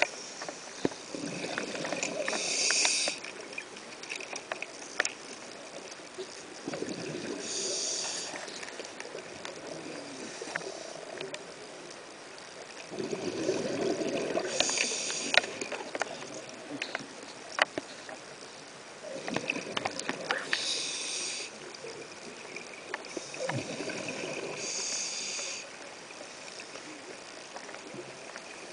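Scuba regulator breathing underwater: five breaths about every five to six seconds, each a high hiss of the inhale and a lower bubbling rush of the exhale. Sharp clicks are scattered throughout.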